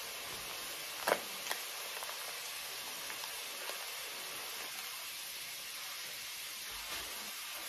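Shrimp frying in oil, a steady sizzle with a few sharp pops, the loudest about a second in.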